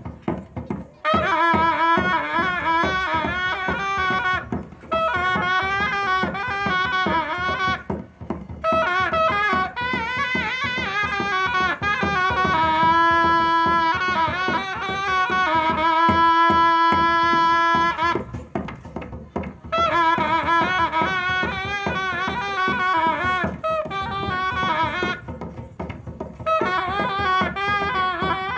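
Khasi traditional dance music: a shrill reed pipe plays a wavering melody in phrases, some notes held long, over a steady beat of drums.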